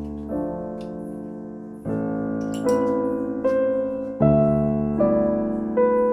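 Background piano music: slow, single notes and chords, each struck and left to ring and fade.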